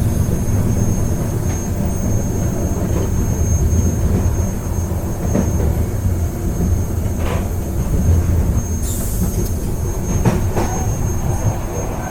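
Moving train heard during a ride: a steady low rumble of wheels on the rails, with scattered knocks and rattles and a thin steady high whine. There is a brief hiss about nine seconds in.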